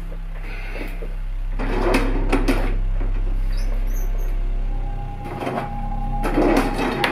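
Wooden desk drawer sliding open on its runners with a scraping rattle about two seconds in, then another burst of sliding and knocking near the end as the drawer's contents are handled.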